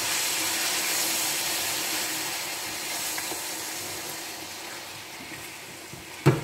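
Lamb liver sizzling in a stainless steel frying pan as it is turned with a silicone spatula: a steady hiss that slowly dies down, with a single sharp knock near the end.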